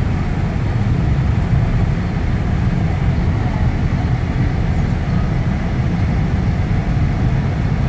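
Steady low road rumble inside a moving car's cabin, tyre and engine noise at highway speed.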